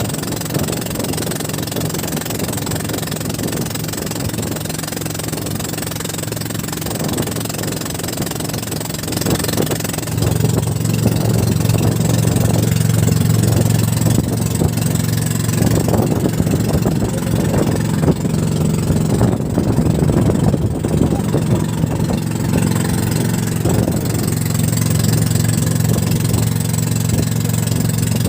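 Small fishing boat's engine running steadily, growing louder about ten seconds in as it picks up speed.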